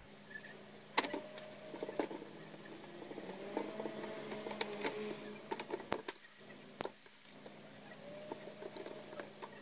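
Scattered clicks and knocks of an old Husqvarna chainsaw's plastic housing and parts being wiped with a cloth and handled on a workbench, over a faint steady hum.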